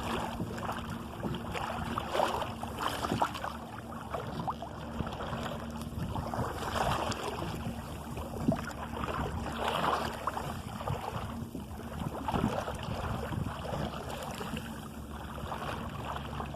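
Water splashing and rushing along the hull of a sailing canoe under way at speed, in irregular surges, with some wind noise.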